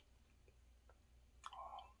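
Near silence with faint mouth sounds of eating a samosa: a few soft clicks, then a short wet mouth sound about one and a half seconds in as the samosa goes into the mouth.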